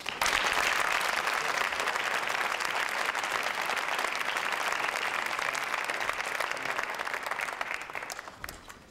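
Audience applauding: a sudden burst of clapping that holds steady for about eight seconds, then dies away near the end.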